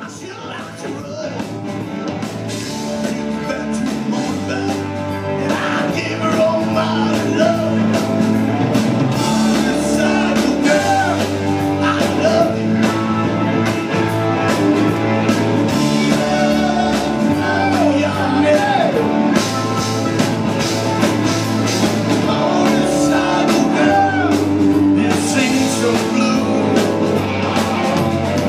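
Live rock band playing, a man singing into the microphone over guitar and bass. The music fades in over the first few seconds, then holds steady and loud.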